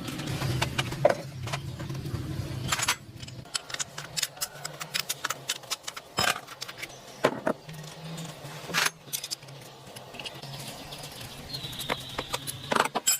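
Metal parts and hand tools clinking and knocking, dozens of sharp irregular clicks over a low steady hum.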